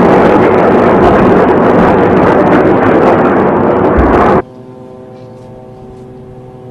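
A loud, steady rushing roar that cuts off abruptly about four seconds in, followed by quiet, sustained ominous music chords.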